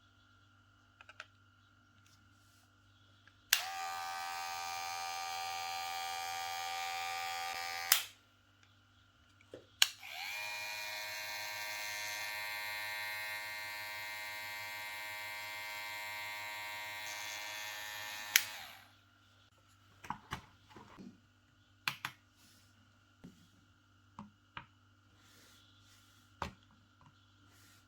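Cordless hair clipper switched on with a click, its motor and blade running steadily for about four seconds, then clicked off; after a short pause a clipper is switched on again and runs for about eight seconds, winding up at the start and winding down after the switch-off click. A few light handling clicks follow near the end.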